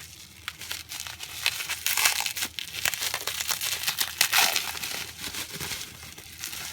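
Packaging crinkling and rustling irregularly as hands rummage through a subscription box's contents.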